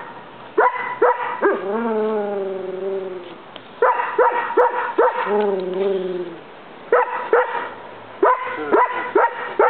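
Rough collie barking in quick runs of three to five barks, twice drawn out into a long wavering whine that slides down in pitch. This is nuisance barking that the dog habitually aims at one person.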